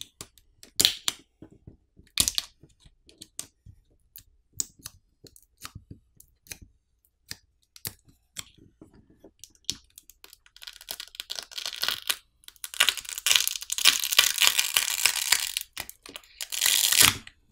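Scattered small clicks from handling the phone, then a long crackling, tearing peel from about ten seconds in as the smartphone battery's adhesive is pulled free with its pull tab. A short louder burst comes near the end.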